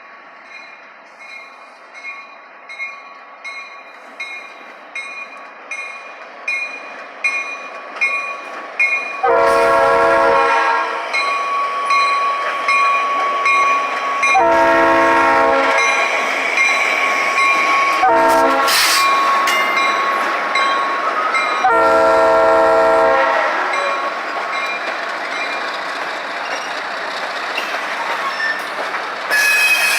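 A bell ringing steadily and growing louder, then a diesel locomotive's air horn sounding the grade-crossing signal: two long blasts, a short, and a long. After the horn comes the steady rumble and wheel clatter of the train rolling past.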